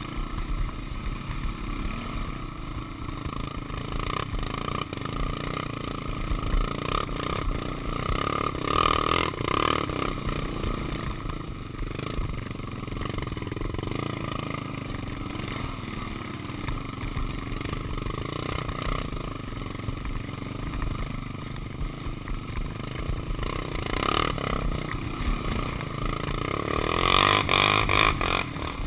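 Honda 400EX quad's single-cylinder four-stroke engine running under load as it climbs, swelling briefly twice, with rattling and scraping over rough, brushy ground.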